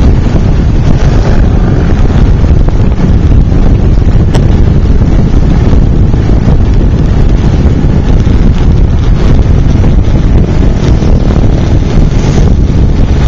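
Heavy, steady wind buffeting on the microphone of a camera on a moving motorcycle, a loud low rumble with the motorcycle's riding noise underneath.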